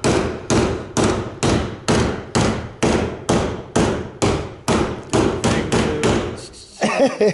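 A large hammer beating the dented sheet-metal wheel arch of a Nissan Bluebird, hammering out accident damage. It strikes steadily about twice a second, each blow ringing briefly, and stops about a second before the end.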